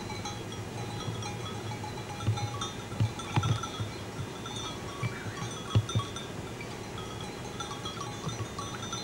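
Bells on a grazing flock of sheep clinking irregularly, with a few dull low thumps.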